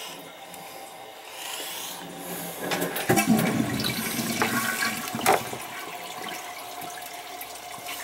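Toilet flushing: water rushes and gurgles down through the bowl for a few seconds, then settles into a steady hiss as the tank refills.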